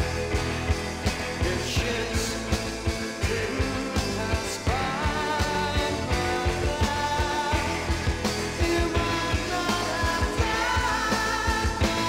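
Late-1960s psychedelic rock recording playing: a full band over a steady drum beat, with sustained pitched lines and some gliding lead notes.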